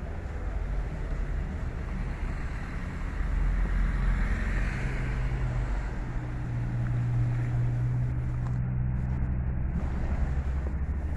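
Low rumble of a motor vehicle, with a steady engine hum through the middle and a louder, hissier swell about four seconds in, over wind on the microphone.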